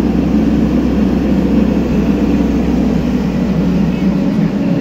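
Heavy-equipment diesel engine running steadily.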